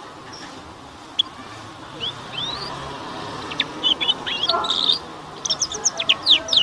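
Juvenile canary chirping and twittering: scattered short rising chirps, then a quick run of sharp falling notes near the end. This is a young bird's early song, still learning to sing.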